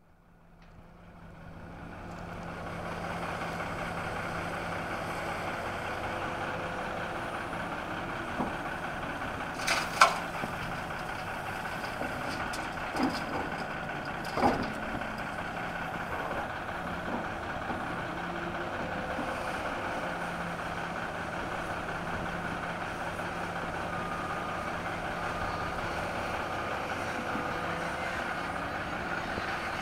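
Heavy diesel engines of a tracked excavator and a dump truck running steadily, fading in over the first few seconds. A few sharp clanks about a third to halfway through as excavated dirt and rock are dropped into the steel dump bed, and a faint intermittent beeping near the end.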